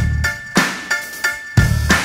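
Background music with a steady drum-kit beat, kick and snare hits, and short repeated chords.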